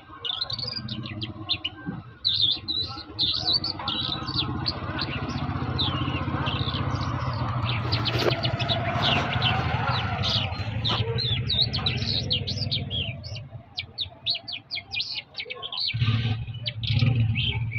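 Small songbirds chirping and twittering in rapid, overlapping calls. A steady low hum runs underneath, weakening for a few seconds near the end before returning.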